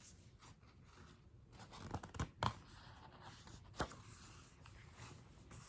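Faint paper rustling and a few short taps and crackles from a picture book being handled, as when a page is turned. The loudest come about two seconds in, with one more sharp tap a little later.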